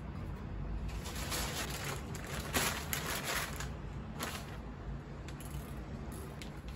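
Plastic mailer bag rustling and crinkling in several short bursts as it is handled and set down, over a low steady hum.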